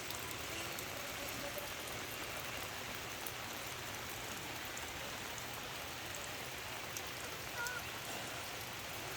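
Mountain stream water rushing steadily over rocks, an even hiss of flowing water, with a faint voice briefly near the end.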